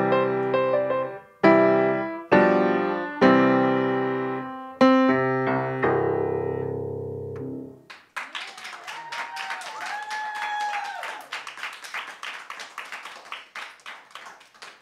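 Acoustic piano playing a piece in chords. It ends on a held final chord that rings out and dies away about eight seconds in. Then an audience claps, with a cheer over the clapping.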